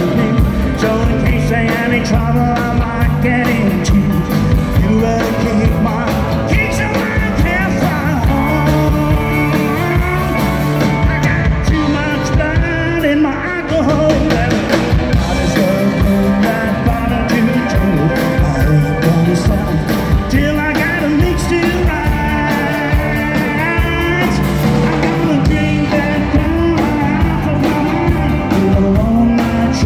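Live country band playing an up-tempo, rock-and-roll-paced number on electric guitars, acoustic guitar, drum kit and keyboard, loud and steady throughout.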